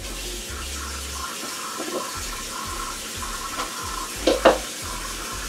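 Water running steadily from a kitchen tap into a sink, with two short knocks a little past four seconds in.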